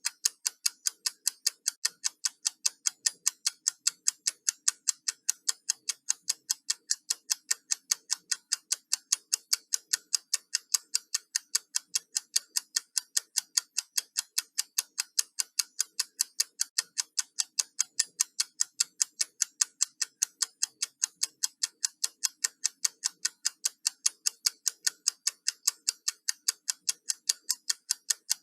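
Countdown timer ticking steadily, about three crisp, evenly spaced ticks a second.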